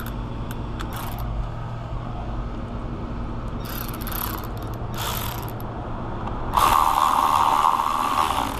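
Cordless electric ratchet driving a fastener into a truck door, its motor starting about six and a half seconds in and running steadily at one pitch; a couple of short rattles come before it.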